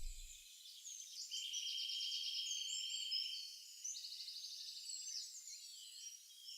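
Faint birdsong: short high chirps and rapid trills with a held high note, after background music fades out at the start.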